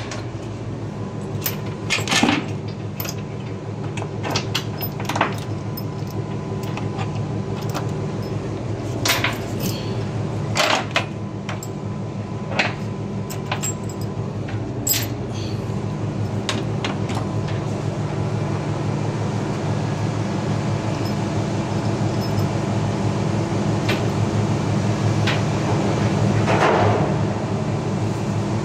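Metal tools clicking and knocking against the bolts of a steel tank manhole cover as it is bolted shut, in sharp scattered strikes, over a steady machinery hum.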